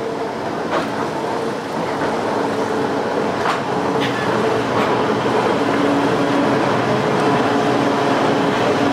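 Pikes Peak Cog Railway diesel railcar number 25 moving slowly past at low speed. Its engine gives a steady hum with a held whine, and there are a few sharp clicks along the track. The sound grows louder as the car draws near.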